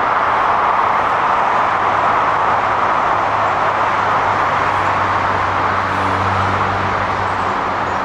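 Steady rush of traffic on Highway 16 (Washington State Route 16), mostly tyre noise, with a deeper engine hum growing stronger in the second half.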